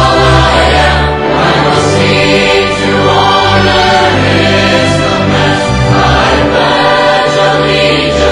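Mixed choir of men and women singing a sacred choral piece in full, held chords, accompanied by a string orchestra.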